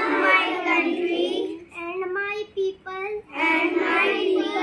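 A group of young children reciting the Indian national pledge together in a sing-song chant, repeating each line after a single clear voice that leads it.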